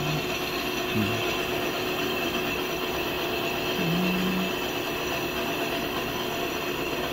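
Haas CNC vertical mill running a test program: a steady machine hum with a constant tone. Short motor whines come in twice, a falling one about a second in and a rising one around four seconds in.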